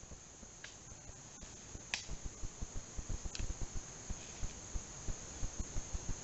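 Steady high-pitched insect chorus of crickets or similar summer insects, with a few sharp snaps about a second and two seconds in, another a little later, and soft low thumps from about two seconds on.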